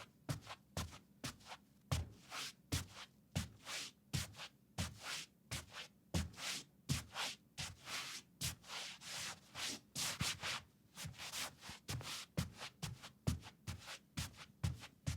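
Bare feet walking on short-pile carpet: an even run of steps, each a soft low thud with a brushing scuff of skin on the carpet. The scuffing is brighter through the middle stretch.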